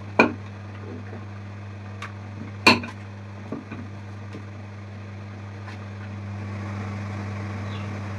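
Puris frying in hot oil in a kadhai: a sizzle that grows louder near the end over a steady low hum, with two sharp clinks of a metal utensil against the pan in the first three seconds.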